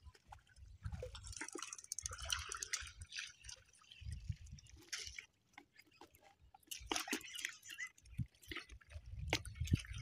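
Faint wet splashing and rustling of hands working a fine-mesh seine net in shallow water, with scattered small clicks and a few dull low rumbles.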